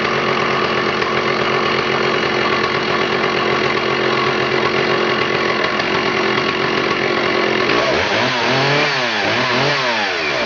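Stihl 064 two-stroke chainsaw running loudly and steadily. Near the end its revs swing up and down twice before it drops off.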